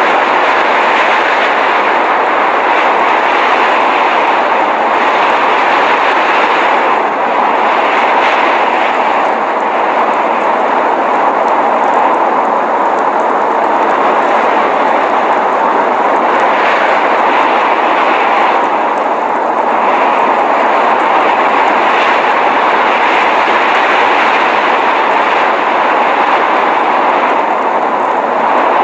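Steady rushing noise of a snowstorm, even and unbroken, with most of its sound in the middle range and little deep rumble.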